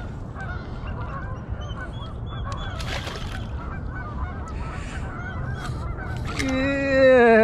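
Hooked largemouth bass splashing at the surface in shallow water as it is pulled in and grabbed by hand. Near the end comes a loud drawn-out call that rises and then falls in pitch.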